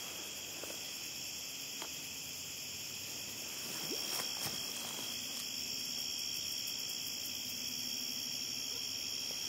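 Night insect chorus, crickets trilling steadily at a high pitch in several layers. A faint low drawn-out call sits beneath from about halfway through.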